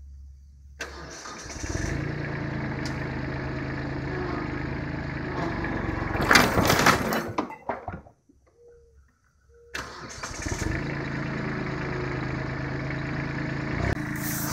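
Kubota B7500 compact tractor's three-cylinder diesel engine starting about a second in and then running steadily, with a louder, noisier burst about six seconds in. The sound drops out for about two seconds, then the diesel is heard running steadily again.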